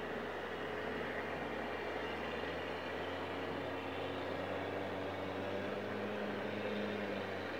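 Steady, even noise with a faint low hum underneath, with no distinct events.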